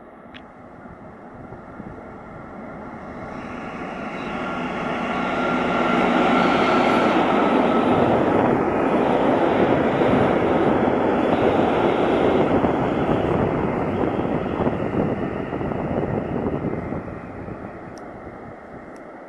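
DB class 294 diesel-hydraulic shunting locomotive passing with a train of flat wagons: the engine and the wheels on the rails build steadily as it approaches, stay loud for about ten seconds as it goes by, then fade as the wagons roll away.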